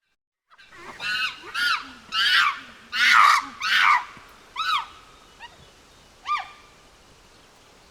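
Apes screeching: a quick run of about seven loud calls, each sliding up and then down in pitch, followed by two fainter, shorter calls.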